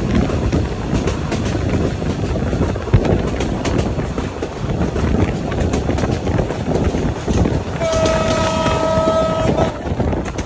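Express passenger train running, with a steady rumble of wheels on rail and the clickety-clack of rail joints. Near the end the locomotive horn sounds one steady blast lasting about two seconds.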